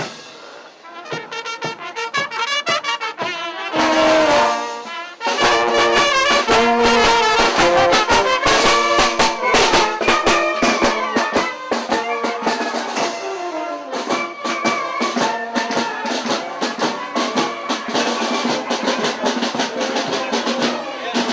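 Brass band playing a tune over a marching drum beat, getting louder about five seconds in.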